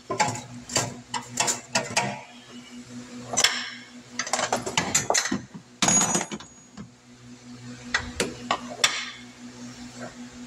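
Aluminium cylinder head of a 5.7 Hemi being set down and shifted into place on the engine block: a string of irregular metal knocks and clinks, the loudest about six seconds in, over a steady low hum.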